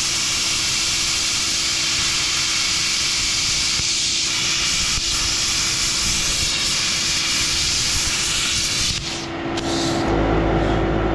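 Handheld plasma cutter torch cutting through a rusted steel bolt and flange: a loud, steady hiss that stops about nine seconds in after a couple of short blasts. A steady machine hum with a low drone is left near the end.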